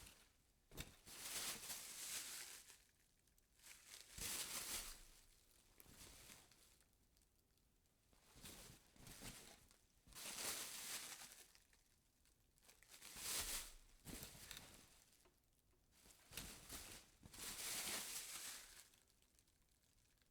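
Plastic grocery bag being handled and moved, crinkling in a series of rustling bursts about a second long, with short quiet gaps between.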